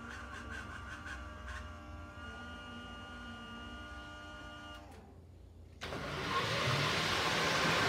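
A model diesel locomotive's electronic sound system idling with a steady hum, with a higher tone joining about two seconds in. Just after five seconds it cuts out for a moment, and then a model train rolling past on the track brings in a louder, steady rushing rumble that grows toward the end.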